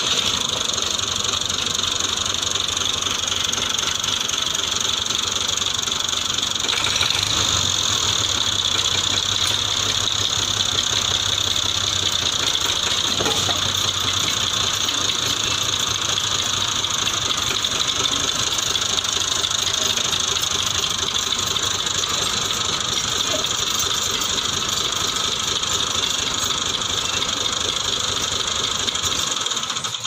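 Massey Ferguson tractor's diesel engine running at a steady idle, heard close up, with a strong steady hiss over the low engine note.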